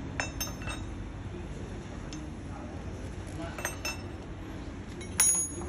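Small metal hardware (an axle bolt, washers and nuts) clinking as it is handled and fitted together: a few light clinks at the start and again about three and a half seconds in, then a louder ringing clink near the end.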